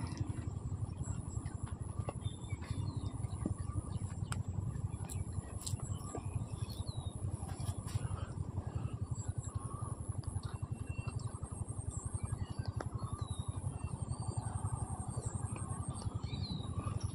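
Outdoor ambience: a steady low rumble with scattered short bird chirps.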